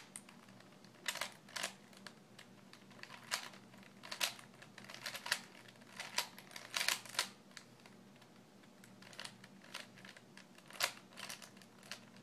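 Rubik's cube faces being turned by hand: a string of sharp, irregular plastic clicks, some in quick runs of two or three, as the corner-swapping algorithm is carried out.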